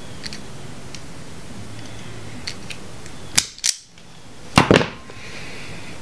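Vise-Grip self-adjusting wire stripper gripping and stripping the insulation off a thin wire. A few light ticks come first, then from about three and a half seconds in, two pairs of sharp snaps about a second apart as the jaws clamp and spring back.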